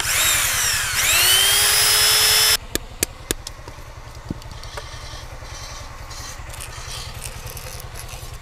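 A power tool cutting wood: its whine falls in pitch, then climbs again and holds for about a second and a half before stopping abruptly. A few sharp knocks follow, over a low steady hum.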